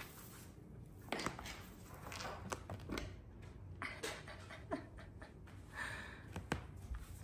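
Scattered light taps and scuffs of kittens' paws and claws on a hardwood floor and an upholstered armchair during play, with a couple of brief soft rustles.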